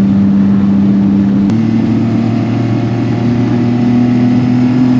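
Honda Acty mini truck's engine running steadily under load, heard inside the cab, with the truck down on power from a misfire. About a second and a half in there is a click and the engine note changes, which the driver takes for a dead cylinder coming back.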